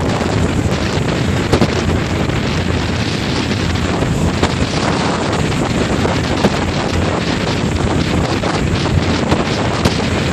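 Steady rush of wind on the microphone aboard a moving ferry, with the low hum of the ferry's engine underneath.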